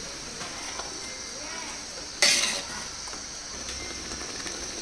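A perforated steel ladle stirs salt into thick fish-biryani masala in a large metal pot, with the masala sizzling steadily underneath. About two seconds in there is one sudden loud scrape of the ladle against the pot, followed by lighter scraping ticks.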